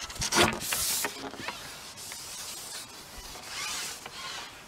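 Handling noise from a carbon pole fishing rod: a few sharp clicks and knocks in the first second, then rubbing, hissing swishes as the pole slides through the hands and is pushed out over the water, once about a second in and again near the end.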